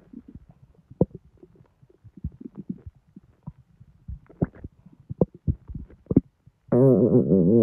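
Bowel sounds from a bloated, overfull belly digesting a large junk-food meal: scattered short pops and squelchy gurgles, then near the end a loud, long pitched growl that wavers in pitch.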